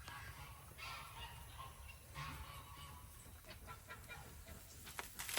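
Faint sounds of chickens dust-bathing: soft hen calls with the rustle of dry dirt being scratched and flicked.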